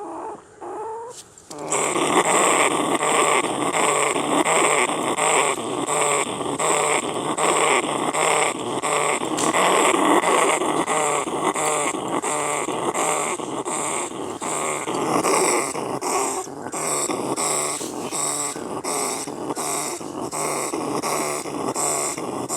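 A loud, continuous, harsh growling sound effect dubbed on for an angry trapped brown rat, pulsing about three times a second. It starts about a second and a half in, after a few short squeals.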